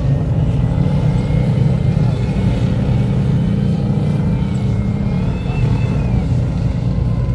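Tracked Type 87 self-propelled anti-aircraft guns driving past, their engines and tracks making a loud, steady low rumble.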